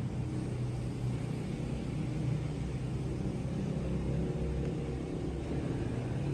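Steady low mechanical hum and rumble that holds at an even level throughout.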